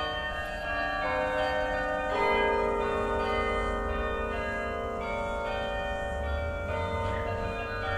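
The National War Memorial carillon playing a slow tune: bell notes struck one after another, each ringing on and overlapping the next.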